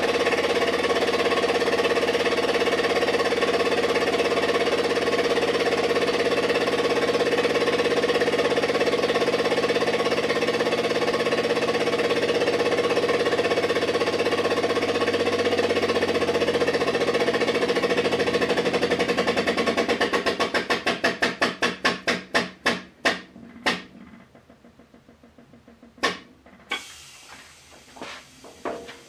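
Pump of a small hydraulic shop press running steadily as the ram extends under load. About 18 seconds in, its strokes become separately audible and slow down over several seconds until it stops, as the pressure builds against the crushed load. A few sharp clicks follow near the end.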